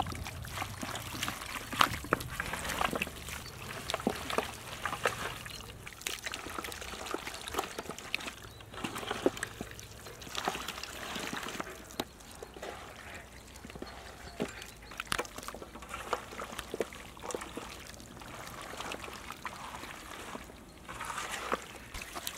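Wet squelching and sloshing of raw chicken wings being kneaded by hand in a buttermilk and spice marinade in a metal bowl, with irregular squishes and slaps throughout.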